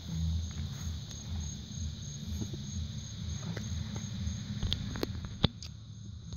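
Evening insect chorus, crickets chirring in a steady high trill with an even pulse, over a low hum. A few handling clicks come late, with one sharp knock about five and a half seconds in.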